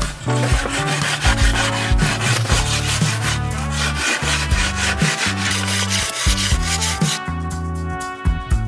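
A long-handled metal-tipped tool scraping and shaving a packed-snow wall in repeated strokes, over background music with a steady bass line. The scraping stops about seven seconds in, leaving only the music.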